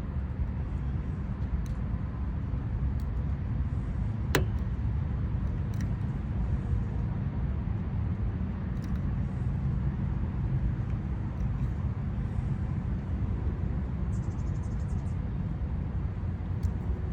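Steady low outdoor rumble with a few faint metallic clicks, the sharpest about four seconds in, from a Lishi pick being worked in a Honda car door lock.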